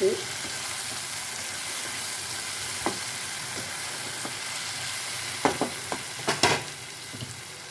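Onion-tomato masala sizzling in hot oil in a pan as it is stirred, with sharp clicks and scrapes of the stirring utensil against the pan, most of them bunched about five and a half to six and a half seconds in.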